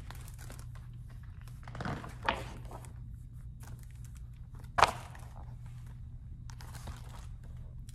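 Paper pages of a hardback picture book rustling as they are turned and the book is handled, over a steady low room hum, with one sharp tap about five seconds in.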